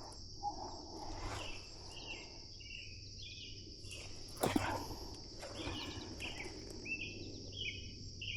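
Steady high-pitched insect drone, with a bird chirping over and over and a single knock about four and a half seconds in.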